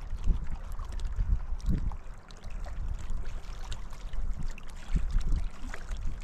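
Wind buffeting the microphone in uneven gusts, with small wind-driven waves lapping against a rocky lakeshore.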